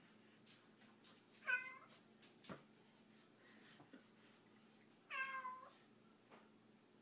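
A cat meowing twice, two short calls about three and a half seconds apart, with a few faint clicks or taps between them.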